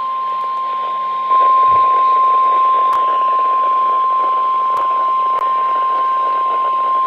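NOAA Weather Radio warning alarm tone: one steady, high-pitched beep over radio static, with a few faint clicks. It is the alert that comes before a severe thunderstorm warning and gets louder about a second in.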